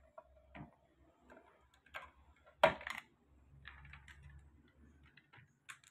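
Scattered small clicks and knocks from a plastic electrical control box lid being handled and lifted off, with one sharper, louder knock a little before the middle.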